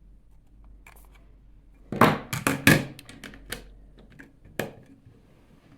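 Watercolour paint pans being handled and bent at the corners so they fit a palette tray: a quick run of sharp clicks and knocks about two seconds in, then a few single clicks.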